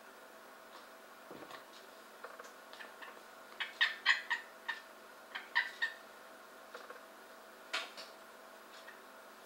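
Cope's gray tree frogs calling: short, buzzy calls come in quick clusters, loudest around four seconds in, with a lone call near the end.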